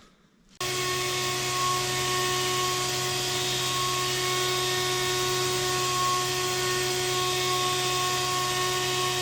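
A machine running steadily, a constant hum with a few fixed tones over a hiss, that starts suddenly about half a second in.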